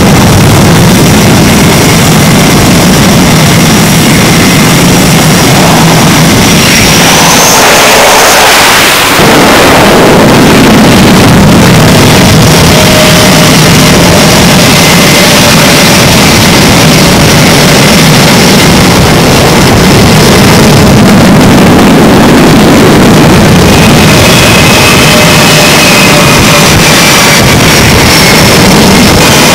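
F/A-18 jet engines running loud on a carrier flight deck: a steady roar with a high whine over it. The sound shifts briefly about a quarter of the way in.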